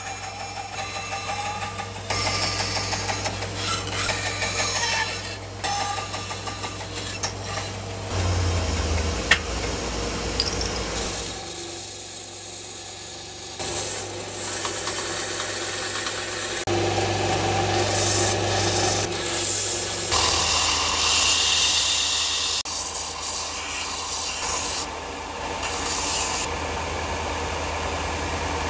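Bandsaw running and cutting small strips of hardwood, the cutting noise rising and falling over a steady motor hum. Later a belt sander runs with a small hardwood piece held against its belt. The sound changes abruptly several times between cuts.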